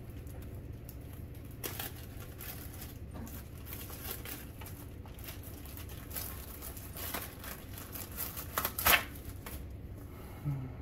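Clear plastic wrapping crinkling and tearing as an instruction manual is pulled out of its bag: scattered short rustles, the loudest about nine seconds in, over a steady low hum.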